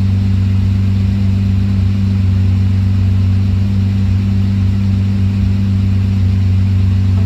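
Lamborghini Murcielago V12 engine idling steadily, a constant low hum with no revving.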